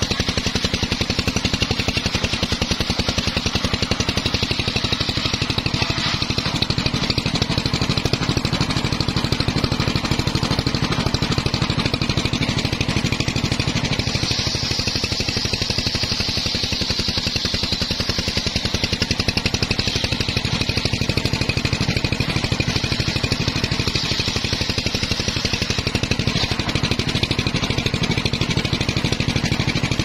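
Homemade circular-saw bench (serkel) running steadily while its large blade rips a mahogany log, over a steady engine hum. About halfway through, the blade's hiss in the wood grows sharper for a few seconds.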